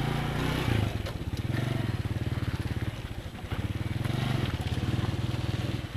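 Small single-cylinder motorcycle engine running under throttle, easing off briefly about halfway through and pulling again.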